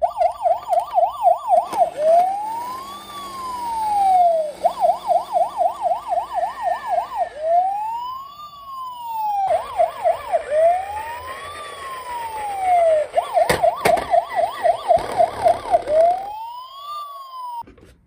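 Electronic siren of a battery-powered toy police car through its small speaker. It switches between a fast yelp, quick up-and-down sweeps about three a second, and a slower wail that rises and falls over two to three seconds. Two sharp knocks come about 14 seconds in.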